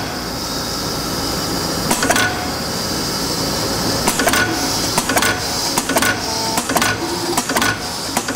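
Snow inclined automatic drilling machine running, its 1/2 hp motor and spindle giving a steady whir. Sharp mechanical clicks of the machine cycling come through it, a pair about two seconds in, then about three a second from about four seconds in.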